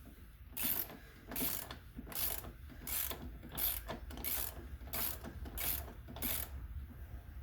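Ratchet wrench worked back and forth in short strokes: nine even rounds of clicking, about one every 0.7 seconds, as the front axle of a Kawasaki Concours 14 is backed out.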